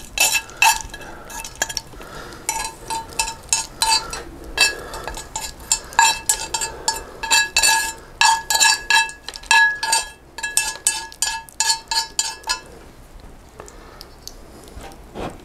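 A spoon tapping again and again against a bowl as pumpkin seeds are shaken out onto a plate. The clinks are quick and uneven, several a second, each with the same short ring, and they stop about twelve seconds in.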